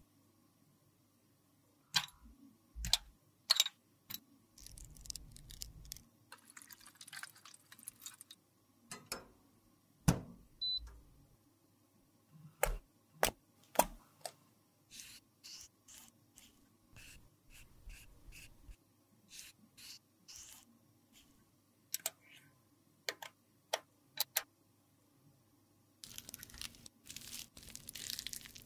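Sharp clicks and taps of cosmetic cases being opened and handled by gloved hands, with a stretch of soft rubbing early on. Near the end, a metal spatula scrapes and smears soft lipstick into a metal palette pan.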